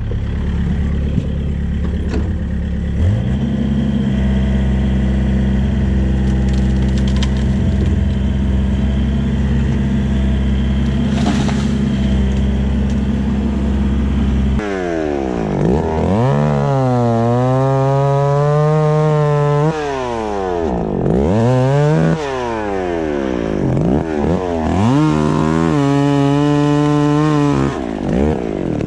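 An engine runs steadily through the first half. Then, from about halfway, a chainsaw is revved up and down in four or five surges while cutting into a tree trunk.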